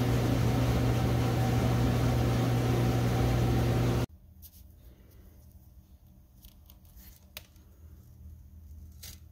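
Steady machine hum with hiss and a low, even drone that cuts off abruptly about four seconds in. After that, quiet room tone with a few faint clicks.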